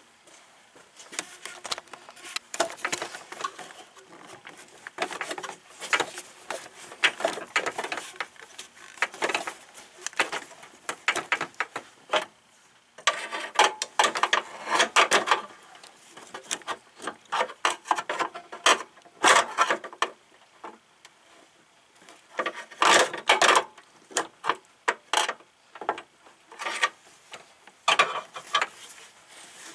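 Hand work on car parts: irregular bursts of clicks, knocks, scraping and rubbing as tools and parts are handled, with the loudest clusters about halfway through and again a few seconds later.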